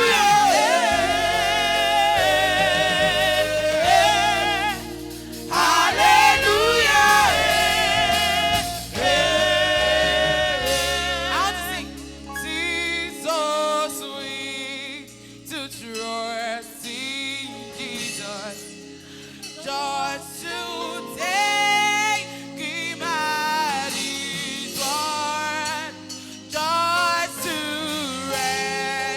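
Gospel choir singing with instrumental backing, the bass dropping out about 13 seconds in while the voices carry on.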